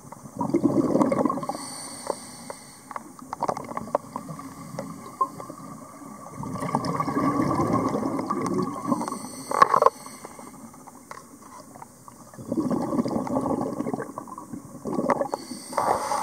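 A diver breathing through a scuba regulator underwater: three long gurgling rushes of exhaled bubbles about six seconds apart, with quieter crackle and clicks between breaths.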